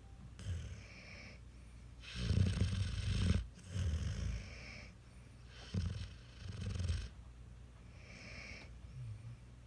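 A sleeping puppy snoring, several snores in a row. The longest and loudest comes about two seconds in, and a fainter one comes near the end.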